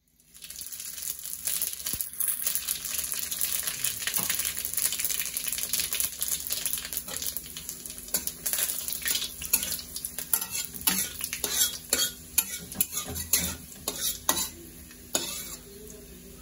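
Whole panch phoron spices, a bay leaf and dried red chillies sizzling in hot oil in an aluminium kadai: the tempering stage of the dish. A metal spatula scrapes and clicks against the pan as they are stirred; the sizzle is strongest in the first half and dies down, leaving the spatula clicks clearer toward the end.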